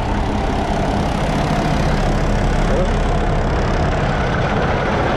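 Wind rumbling on the microphone over a diesel truck engine idling steadily.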